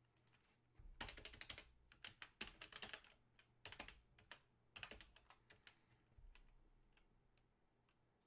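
Faint typing on a computer keyboard, in several short runs of keystrokes that thin out after about five seconds.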